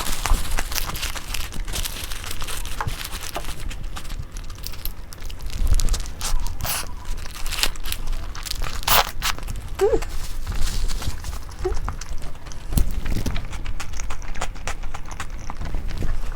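Close-up eating sounds: irregular crunching and chewing of food, with scattered clicks and crinkling rustles.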